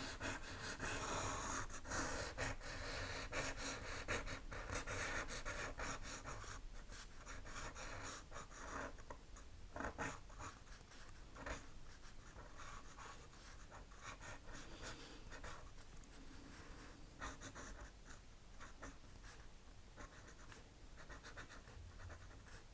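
Pen scratching across sketchbook paper in quick drawing strokes, busiest and loudest in the first several seconds, then lighter and fainter.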